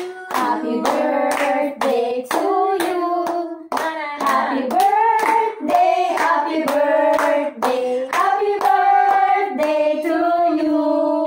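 A group of women singing together while clapping their hands in a steady beat, about three claps a second.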